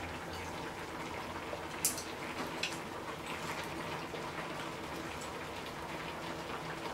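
Spicy seafood ramen broth bubbling in a wide pot: a steady simmer with a few sharp pops of bursting bubbles.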